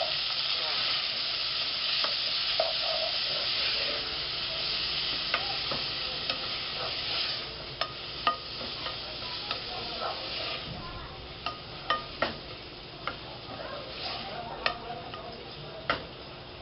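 Diced onion and tomato sizzling in hot oil in a pot while being stirred with a wooden spoon. The sizzle is loud at first and dies down after about seven seconds, and the spoon knocks sharply against the pot several times in the second half.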